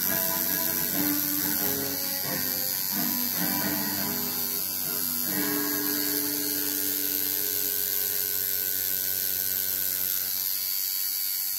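Home-rebuilt coil tattoo machine buzzing steadily. Music plays over it in the first half and stops abruptly about halfway.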